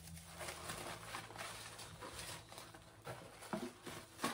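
Hands rummaging through a cardboard subscription box, rustling the packing material and shifting the products inside, with a couple of light knocks near the end.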